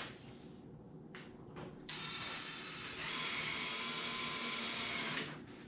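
Power drill driving drywall screws into foam board: two short blips of the motor, then about three seconds of steady whining run that picks up speed partway through before stopping.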